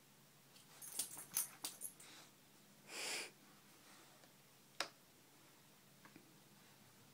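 A dog gives one short breathy huff about three seconds in. Around it are a few soft clicks and rustles as it mouths a plush toy on the carpet, and one sharp click shortly after.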